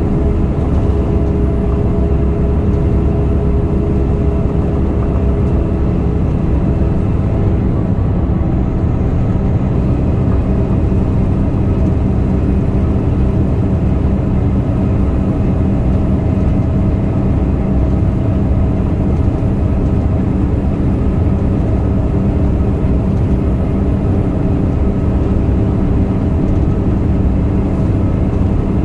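Dump truck's diesel engine and tyres droning steadily inside the cab while cruising at highway speed, the engine pitch holding even.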